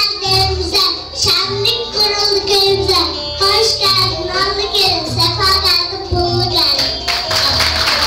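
A young girl singing into a microphone over backing music with a regular low beat.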